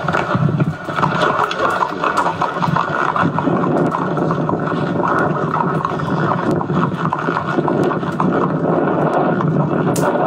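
Sound track of camcorder footage shot from a horse's back, played through a television and re-recorded: a steady, dull rushing noise full of small clicks and knocks from the ride.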